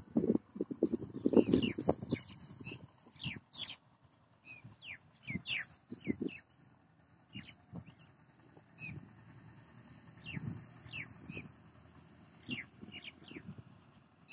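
Small birds chirping in short, quick falling notes, scattered through, over irregular low rustling and bumping noises that are loudest in the first two seconds.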